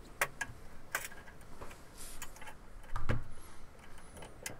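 Metal-on-metal clicks and knocks from parts being handled and fitted on a lathe apron: a few separate taps, with a heavier knock about three seconds in.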